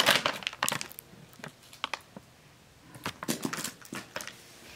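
Light crinkles and clicks of plastic candy packets being handled, in two clusters: one near the start and one about three seconds in.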